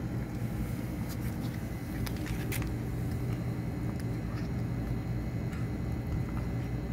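A steady low hum runs under everything, with scattered faint clicks from kittens chewing chicken and rice off a plastic plate, thickest a second or two in.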